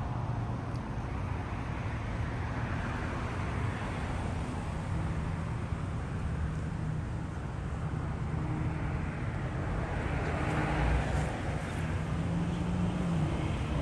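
Steady outdoor background noise of distant road traffic with a low hum, swelling about four seconds in and again near the end.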